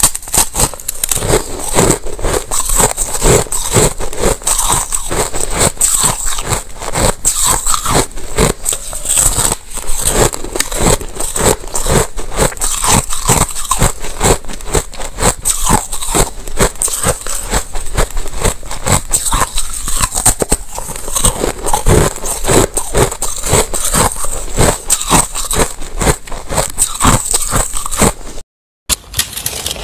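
Teeth biting into and chewing a disc of white frozen ice close to a microphone: a dense, continuous crunching and crackling of ice breaking. The sound breaks off for a moment near the end.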